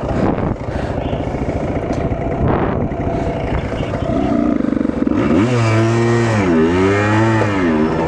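Yamaha Blaster quad's two-stroke single-cylinder engine under load on a tow strap, pulling a stuck quad. It runs at low revs with a choppy rumble, then from about halfway through is revved up and down in several long surges.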